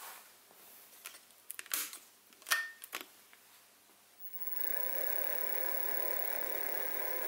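A few clicks and knocks, then about four and a half seconds in the Sieg SX2P mini mill's spindle motor starts. It comes up to speed quickly and runs steadily with a whine, turning the drill chuck and centre drill ready to centre-drill the holes.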